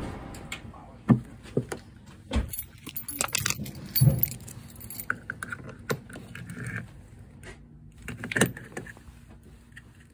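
Camper van's fuel filler flap opened and the plastic diesel filler cap worked loose and pulled off: a series of plastic clicks, knocks and rattles, with sharp knocks about a second in and about four seconds in.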